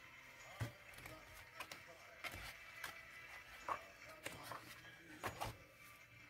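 Sheets of a craft paper pad being lifted and turned by hand: a series of short paper rustles and light taps, about seven more distinct ones spread through the few seconds.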